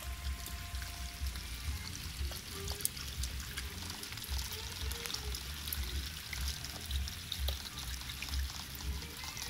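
Rainwater pouring from a downpipe into a flooded drain gully, splashing and gurgling, with rain pattering on the pooled water. An uneven low rumble runs underneath.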